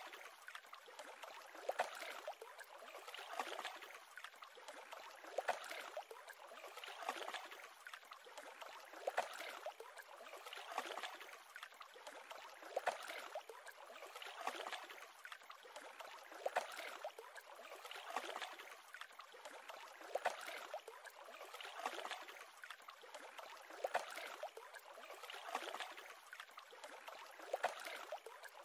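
Small lake waves lapping and splashing at the shore, a surge about every two seconds over a steady wash of water.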